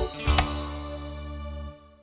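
Live dangdut band music ending a number: one last accented hit of drums and band, then a held chord ringing out and dying away, cut off shortly before the end.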